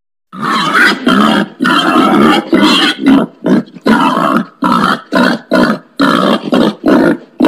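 Wild pig grunting: a quick run of loud grunts, about two a second, starting after a brief silence.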